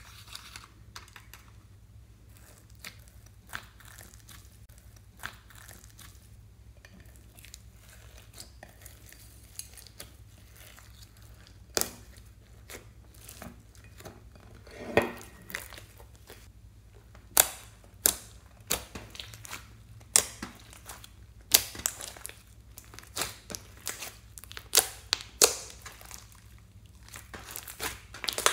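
Hands working a soft slime mixed with foam beads and glitter, making sticky crackling pops and squelches. The clicks are faint and scattered at first, then come loud and frequent in the second half as the slime is squeezed and pressed.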